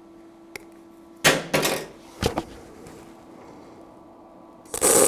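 Eastwood MP200i MIG welder's arc crackling for about half a second near the end, a timed plug weld on the spot timer, after two short loud crackles about a second in. The uneven start is put down by the welder to a ball left on the end of the wire, after he first suspected a poor ground.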